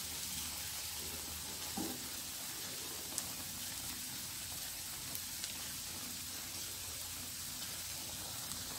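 Thick egg-and-vegetable omelette frying in a generous amount of hot oil over low heat: a soft, steady sizzle with an occasional faint pop.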